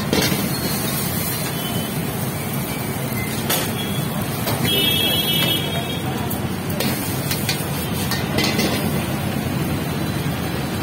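Steady rumbling din of a busy noodle-stall kitchen with a few sharp clinks of a steel ladle against the wok and the foil takeaway tray, and a brief high-pitched tone about five seconds in.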